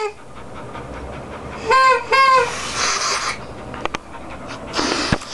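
Small plastic toy horn blown by mouth: two short honks in quick succession about two seconds in, each a steady buzzy tone.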